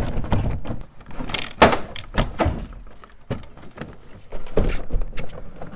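Plastic door trim panel of a Chevy Silverado being lifted and worked off the door: a series of knocks, clicks and rattles, the loudest about a second and a half in.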